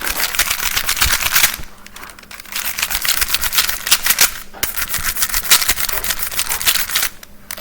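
Rapid plastic clicking of a Rubik's Phantom 3x3 cube being turned quickly by hand, in three spells with short pauses between them.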